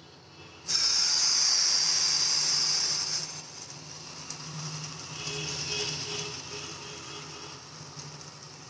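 Egg-paratha batter hits a hot oiled nonstick pan and sizzles: a loud hiss starts suddenly less than a second in, then drops after about three seconds to a softer, steady sizzle as the batter cooks.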